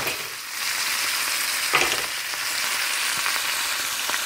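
Seitan roast sizzling steadily in olive oil and beer in a frying pan, with one brief knock a little under two seconds in.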